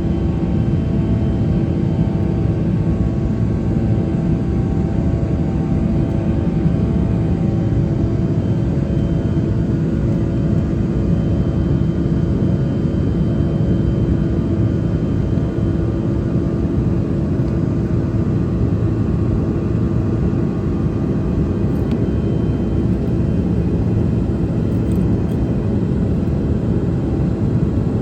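Cabin noise inside a Bombardier CRJ200 regional jet: its rear-mounted General Electric CF34 turbofans running steadily, a deep rumble with several steady whining tones over it.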